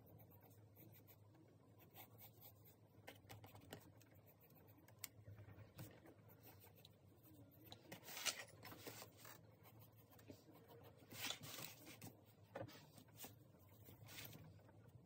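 Faint pencil strokes scratching on sketchbook paper, with a few louder scratchy strokes about eight and eleven seconds in.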